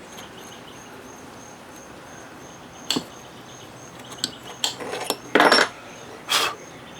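Metal hand tools and hardware clinking and scraping in a few separate knocks and a short rattle during work on an outboard's tilt-and-trim motor mount. Crickets chirp steadily in the background, about four chirps a second.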